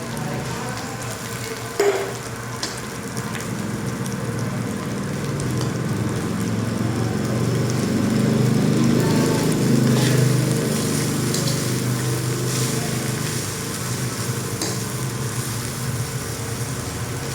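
Fried rice sizzling in a hot pan as it is stirred, with a few sharp knocks of the utensil on the pan, the loudest about two seconds in, over a steady low hum.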